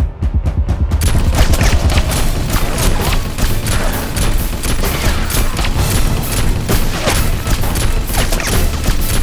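Rapid gunfire: dense volleys of shots that thicken about a second in, over a background music bed.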